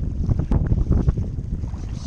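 Wind buffeting the microphone in irregular gusts, over water sloshing and splashing from a kayak's paddle strokes.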